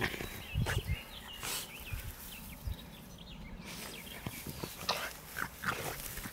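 A bulldog rolling and wriggling on its back in long grass, with irregular rustling of the grass and the dog's own short snuffling noises.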